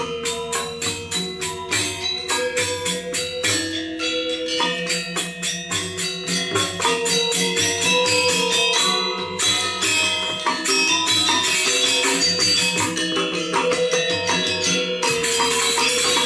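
Balinese gamelan playing fast, dense metallophone figuration with rapid ringing strikes, the accompaniment to a Legong dance. It grows louder about seven seconds in, and the shimmer of crash cymbals thickens near the end.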